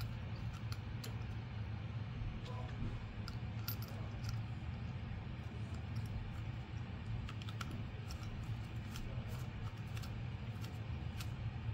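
Light, irregular clicks and taps of a small nut being threaded by hand onto a screw on a drill press switch plate, over a steady low hum.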